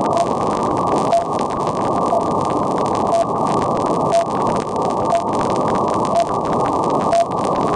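Shortwave static from the RWM Moscow time station on 9996 kHz, with a short beep once a second: the station's second markers.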